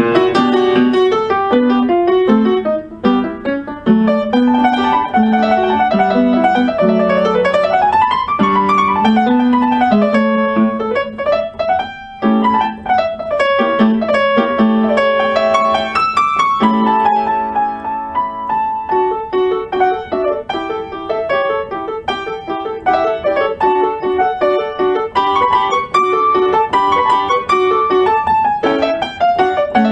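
Piano music with flowing, quick runs of notes that rise and fall.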